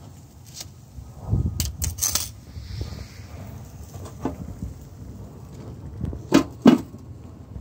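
Metal handling sounds from a Weber Go Anywhere charcoal grill: stainless tongs clicking, then the grill's steel lid being put on and handled. Near the end come two sharp, ringing metal clanks about a third of a second apart, the loudest sounds.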